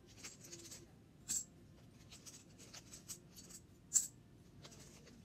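Faint crinkling and rustling of a small plastic snack packet handled while chips are taken out, with two sharper crinkles, about a second in and about four seconds in.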